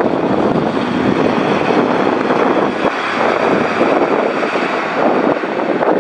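Small diesel route bus driving past and pulling away, its engine running under load, with wind buffeting the microphone.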